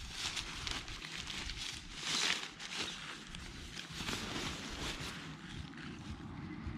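Tent fabric and nylon stuff sacks rustling and crinkling as they are handled, loudest about two seconds in, with wind buffeting the microphone.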